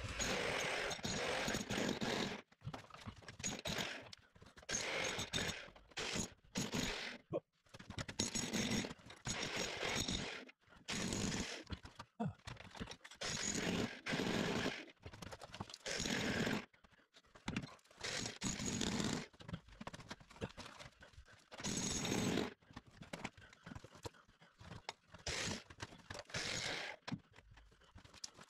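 Electric demolition hammer chiselling a slot for pipes into a plastered wall, run in short bursts of a second or two with brief pauses between.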